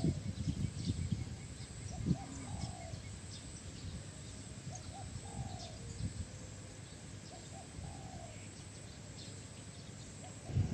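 A dove cooing: the same short phrase of two brief notes and a longer falling note, repeated about every two and a half seconds, over faint low rumbling.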